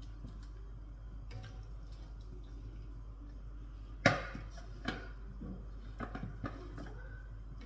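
Kitchen clatter of a plate and a fork: one sharp knock about four seconds in, then a lighter knock and a few small clinks as pieces of cooked turkey are moved onto a plate.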